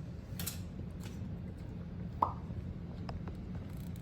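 Light clicks and taps from handling, over a steady low room hum, with one short sharp knock that rings briefly about two seconds in.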